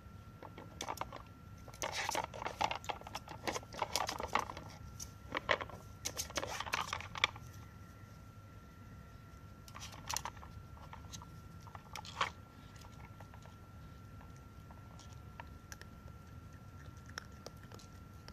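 Sheltie puppy working a plastic tornado treat puzzle: bursts of clicking and clattering plastic with crunching of treats, busiest in the first seven seconds, then again briefly twice. A faint steady high tone sits underneath.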